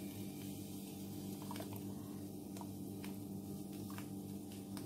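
Small chunks of seasoning dropped by hand into a pot of fish heads in water: a few faint, scattered taps over a steady low hum.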